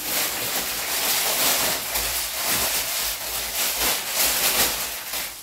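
Thin plastic carrier bag rustling and crinkling steadily as hands work at its knot to open it.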